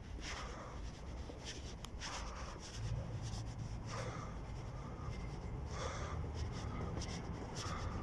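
Footsteps of a person walking at an easy pace on a polished stone floor, soft scuffing steps about once a second, over a steady low rumble.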